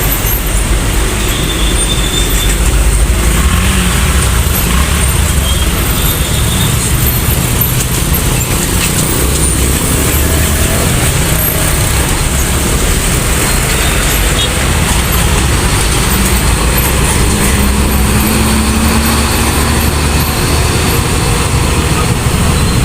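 Steady road traffic noise, heavy vehicles' engines and tyres going by with a low rumble, and a humming engine note partway through the second half.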